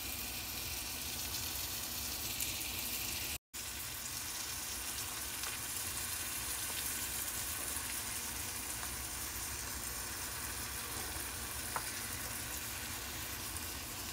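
Flour-dusted chicken breasts frying in melted butter in a skillet: a steady sizzle with faint small crackles. The sound cuts out completely for an instant about three and a half seconds in.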